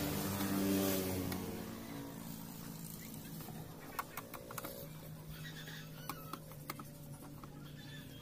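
A motor engine running close by, loudest in the first two seconds and then fading, with a steadier low hum later on. Small sharp metallic clicks come about four seconds in and again around six seconds in as a screwdriver works the case screws of a DVD player.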